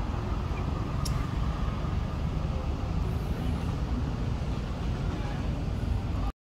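Steady low outdoor rumble with no clear events, with one faint click about a second in; it cuts off suddenly near the end.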